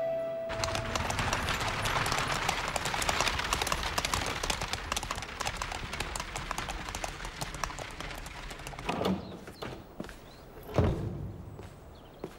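Horse-drawn carriage on cobblestones: hooves clip-clopping and iron-rimmed wheels rattling, growing fainter over several seconds. Near the end come two thuds, the second louder.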